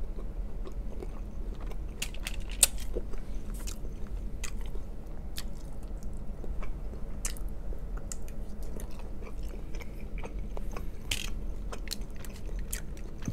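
A person chewing food, with many short wet mouth clicks and smacks scattered throughout, over a low steady hum.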